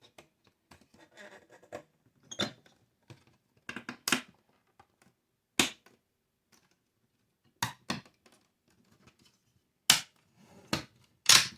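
Plastic parts of a boiler controller module being handled and fitted back into place: about nine irregular sharp clicks and knocks with faint rustling between, the loudest near the end.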